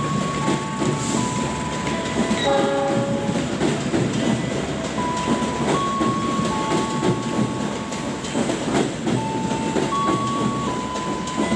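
Long-distance passenger train's carriages rolling slowly past with a steady rumble and clicking over the rail joints. High squealing tones from the wheels hold and jump between pitches every second or so, with a quick run of falling squeals about three seconds in.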